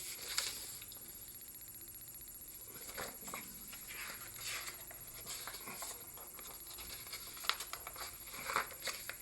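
Faint rustling and soft clicks of a paper wall calendar being handled as its pages are turned, a few short sounds scattered over a quiet background.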